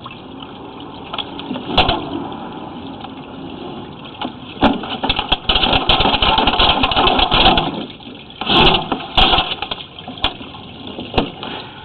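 A sewer inspection camera's push cable being worked back through the drain pipe: irregular rattling and scraping with sharp clicks, densest in two stretches, about halfway through and again near the two-thirds mark.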